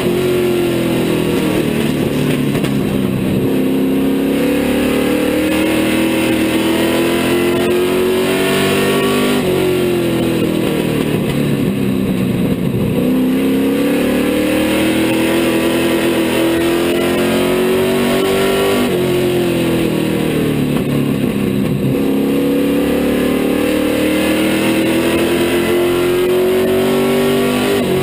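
Street stock race car's engine at racing speed, heard from inside the cockpit: its pitch climbs steadily for about nine seconds, then falls off quickly as the throttle is lifted for a corner, a cycle that repeats three times.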